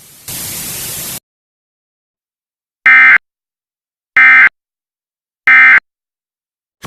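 A short burst of static hiss that cuts off, then three identical short, loud Emergency Alert System end-of-message data bursts: buzzy two-tone digital warbles about a second and a half apart, marking the end of the alert.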